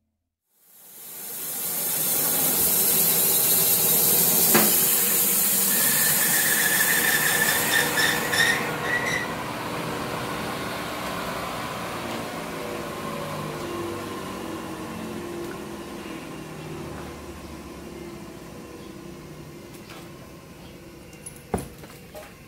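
Band sawmill blade cutting through a box elder log: a loud, steady hissing cut with a squealing tone from about six to nine seconds in. The hiss drops away just after eight seconds and the mill runs on more quietly, fading, with a couple of sharp knocks near the end.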